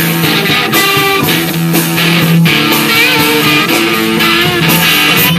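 Rock band playing live, with guitar out in front.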